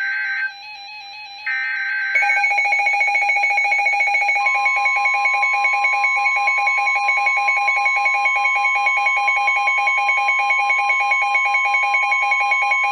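NOAA Weather Radio emergency alert signalling. Short screeching SAME digital header bursts come about once a second at the start. At about two seconds a loud, rapidly pulsing alarm tone takes over, and a steady single-pitch warning alarm tone joins it about four seconds in. Both tones cut off together at the end, just before the warning message is read.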